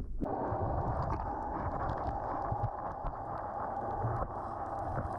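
Muffled underwater noise picked up by a diver's camera: a low rumble with a steady hum and a few faint clicks. The sound changes abruptly just after the start.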